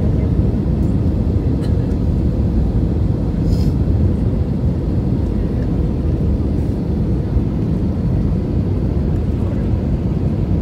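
Steady low rumble of a jet airliner's engines and rushing air, heard inside the passenger cabin on approach to landing with the flaps lowered.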